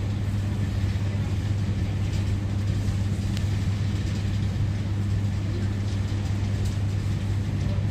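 Steady low mechanical hum with a constant drone, unchanging throughout, over a soft even background noise.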